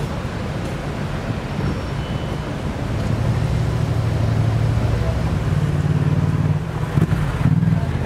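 Street traffic with a vehicle engine running close by, a low steady hum that grows louder about three seconds in. A few short knocks come near the end.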